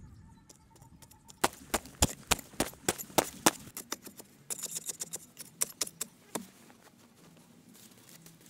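Wooden digging stick jabbing into hard, dry sandy soil: a rapid, irregular run of sharp knocks, a few a second, starting after about a second and a half and stopping a little past six seconds, with a brief scraping of loose earth partway through.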